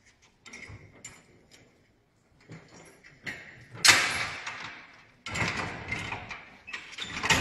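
Scattered metal clanks and knocks, with one loud bang about four seconds in. From about five seconds a rougher continuous noise begins, and an engine starts and runs loudly right at the end.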